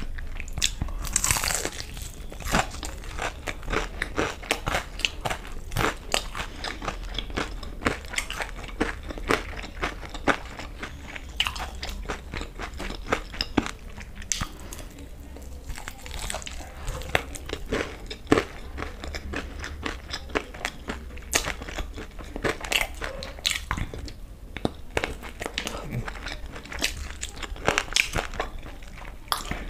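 Close-miked eating of fried chicken lollipops: crisp crunches as the coating is bitten, then wet chewing with many sharp mouth clicks. The loudest click comes a little past the middle.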